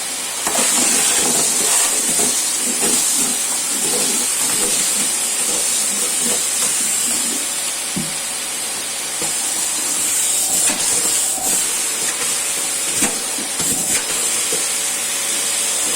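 Old Electrolux vacuum cleaner running with a steady high hiss of airflow over the motor hum, and irregular clicks and rattles as cornflakes are sucked up through the nozzle and hose.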